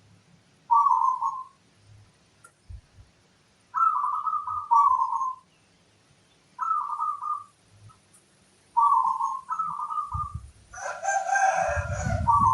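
Zebra dove (perkutut) cooing: a series of short, rolling phrases pitched around 1 kHz, with quiet gaps between them. Near the end, a louder and lower call with a rumble underneath overlaps the song.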